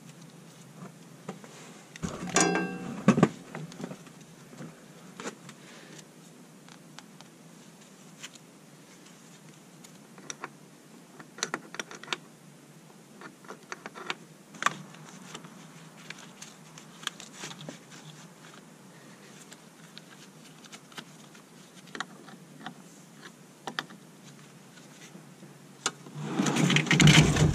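Intermittent clicks and clinks of hand tools and battery cable clamps as cables are fitted onto the posts of new lead-acid batteries. A louder clatter comes about two seconds in, and a burst of rushing noise near the end.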